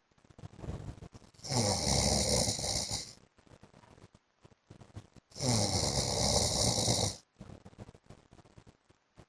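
A man snoring in his sleep: two loud snores, each lasting about a second and a half, about four seconds apart, with much quieter breathing between.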